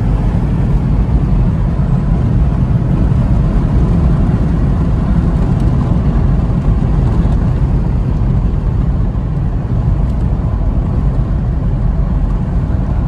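Mahindra Bolero Neo's diesel engine and tyres making a steady low rumble while driving along the road.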